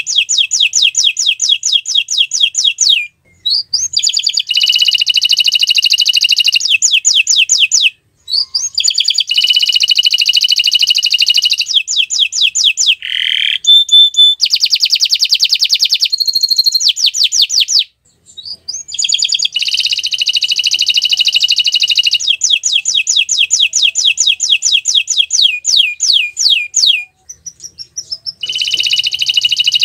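Domestic canary singing: long phrases of rapid, high repeated chirps and trills, the notes sweeping downward, broken by short pauses four times.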